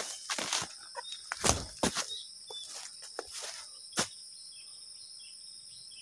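Footsteps crunching through dry leaves and undergrowth, about a dozen uneven steps that stop about four seconds in. A steady high-pitched drone of insects runs throughout, with a few faint bird chirps.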